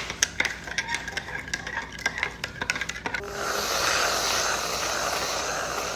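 Irregular clicking and clattering of small hard objects for about three seconds, then a steady hiss that runs for about three seconds before stopping.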